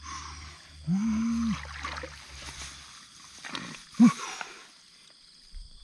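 Two short low-pitched vocal sounds. The first is held for about half a second, about a second in. The second is brief, rising and falling, about four seconds in. A low hum runs underneath for the first half.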